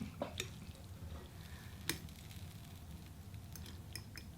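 A few light clicks of utensils against a bowl as noodles are stirred, the clearest about two seconds in, over a low steady hum.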